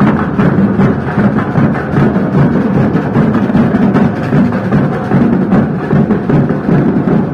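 Loud music with drums and percussion, a steady beat.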